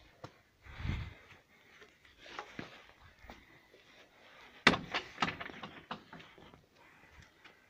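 A garden gate bangs shut about halfway through with one sharp knock, followed by a few lighter clicks, amid light footsteps and rustling.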